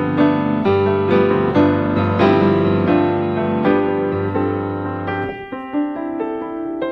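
Background piano music: a gentle melody of struck notes over held low notes, the low notes dropping out about three-quarters of the way through and leaving lighter, higher notes.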